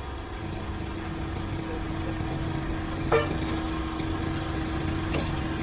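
An engine running steadily, with one sharp knock about three seconds in.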